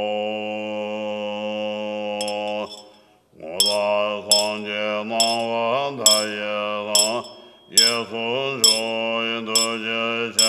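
Deep chanting voice holding one long note, then chanting in slowly wavering held phrases, with a small bell or cymbal struck about once a second.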